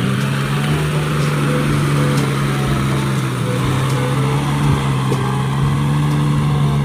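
Kubota compact tractor's diesel engine running steadily under load as its rear rotary tiller churns paddy soil.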